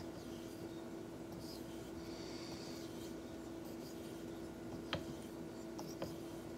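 Straight razor honed on a wet Shapton 5000-grit whetstone: faint swishing strokes of the blade over the stone, with two light clicks of the razor on the stone near the end. A steady hum runs underneath.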